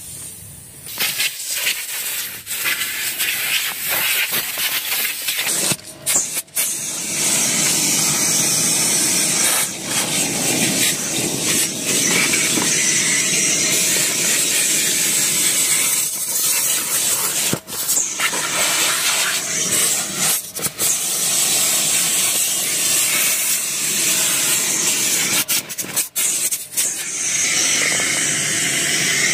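A loud hiss of rushing air from an air-powered cleaning tool working over the car's floor carpet. It starts about a second in and cuts out briefly several times.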